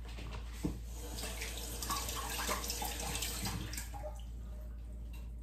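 Kitchen tap running into a sink, a steady hiss of water that stops about four seconds in, with a single knock near the start.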